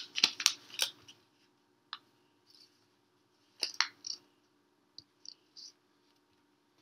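A sheet of paper being folded and creased by hand: short crinkles and clicks, a cluster in the first second, then a few scattered ones about 2, 4 and 5 seconds in.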